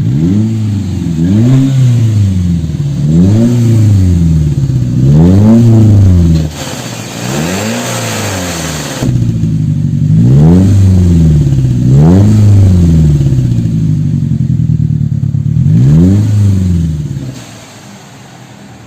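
Chevrolet Captiva four-cylinder engine revved again and again with its exhaust cutout valve open, giving a loud, open exhaust note. Each rev climbs and falls back, about every two seconds, and the engine settles down near the end.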